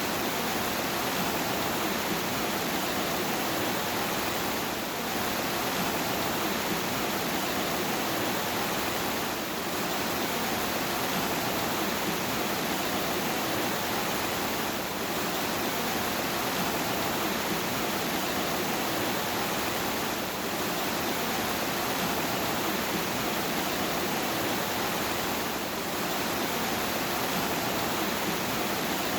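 Steady heavy rain, an even wash of hiss with no single drops or thunder standing out, dipping slightly in loudness about every five seconds.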